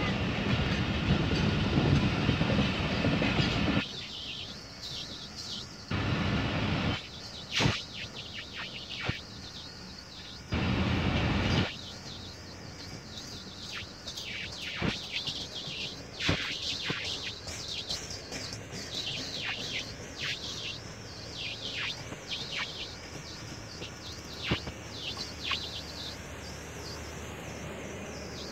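Rumble of a departing diesel-hauled passenger train fades out sharply about four seconds in. Two short bursts of rumbling noise follow, around six and eleven seconds in. After that, quieter night background with faint high chirping.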